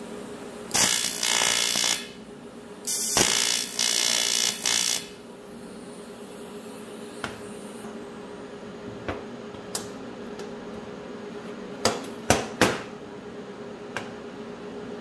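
TIG welding arc on a cast aluminum bracket, struck twice as a loud hissing buzz lasting about a second and then about two seconds: tack welds on a crack. Later come a few sharp knocks, three close together near the end, as the aluminum part is handled and turned over on the steel welding table.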